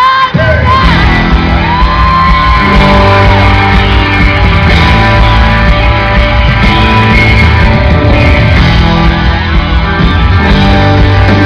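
Live amplified rock band playing, with guitar lines over a steady bass.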